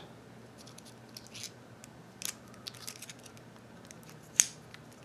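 Protective tape being peeled off an ink cartridge: faint crackling and small clicks, with one sharp click about four seconds in.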